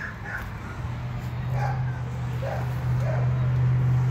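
American Bully puppy giving several short, high whimpers and yips. Under them a steady low engine hum builds up from about a second in.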